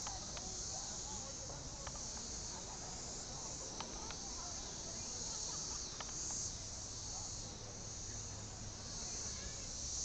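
Cicadas droning in a steady, high-pitched chorus that swells and eases every few seconds.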